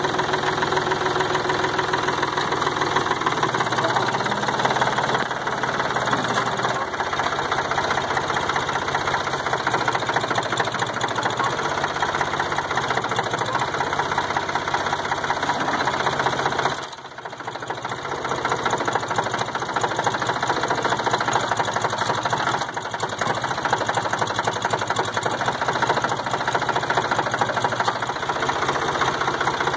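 Late-1960s farm tractor engine running steadily with a clattering, knocking sound. The sound drops away sharply for about a second around the middle, then comes back.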